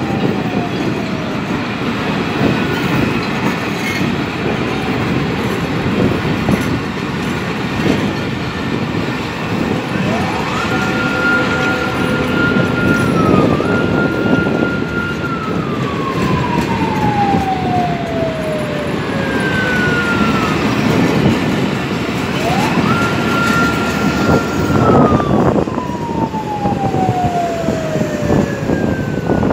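Passenger train coaches rolling past at low speed, a steady rumble and clatter of wheels on track. Over it a siren wails twice: it rises quickly, holds a high note for a few seconds, then slides slowly down, once around the middle and again near the end.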